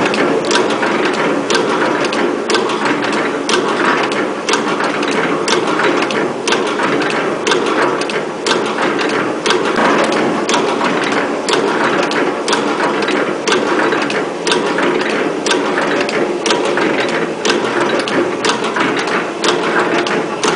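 SKY-201A automatic rope tipping machine running, a steady mechanical clatter with sharp clicks repeating in an even rhythm as it cycles through tipping the cord.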